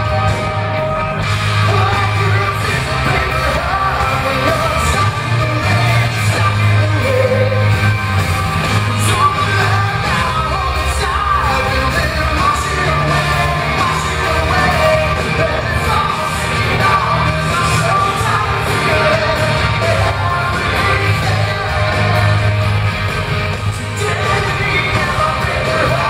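Live rock band playing loud and steady: electric guitar and drums, with a singing voice.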